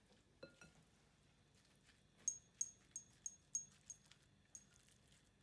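Spatula clinking against a glass mixing bowl while ground pork filling is stirred: about eight quick taps, roughly three a second, each a short bright ring.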